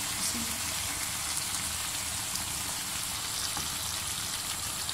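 A pan of sliced potatoes and tomatoes frying on a low flame with a steady, even sizzle as raw eggs are poured in.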